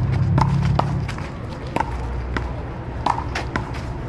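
A paddleball rally: the ball struck by paddles and bouncing, heard as a string of sharp, unevenly spaced pops, a few a second. A low rumble runs under the first second.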